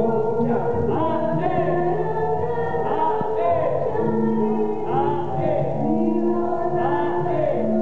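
Music with singing accompanying a Javanese dance: held notes under short sung phrases.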